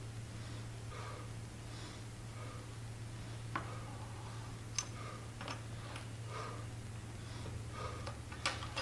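A man breathing hard in regular puffs, about one a second, while curling dumbbells, over a steady low hum. A few faint sharp clicks fall about halfway through.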